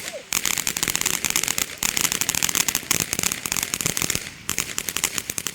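Fireworks going off in a rapid, dense run of sharp cracks, with a short break about four seconds in.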